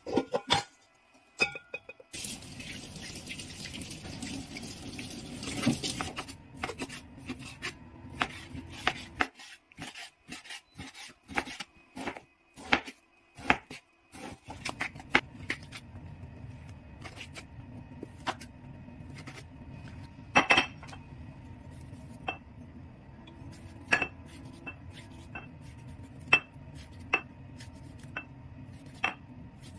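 Kitchen knife slicing raw pork and tomato, with irregular sharp taps and clinks of the knife against the cutting board and dishes, over a low steady background hum.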